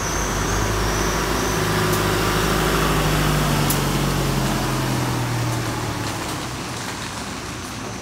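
A motor vehicle's engine running with a steady low hum, swelling up at the start and fading away near the end.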